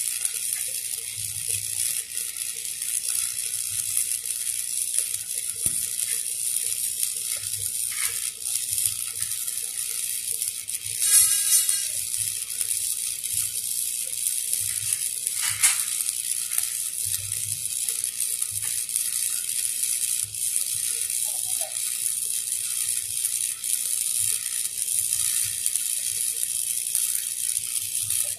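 Stick-welding arc (shielded metal arc welding) crackling and sizzling steadily as a flange is welded onto a 3-inch steel pipe. There is a brief louder burst about eleven seconds in.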